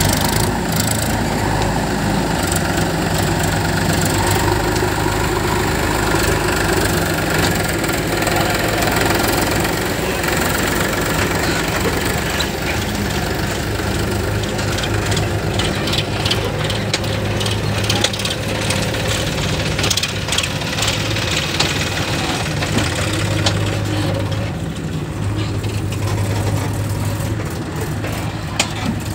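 Powertrac tractor's diesel engine running steadily under load, pulling a trolley heaped with soil through soft ground.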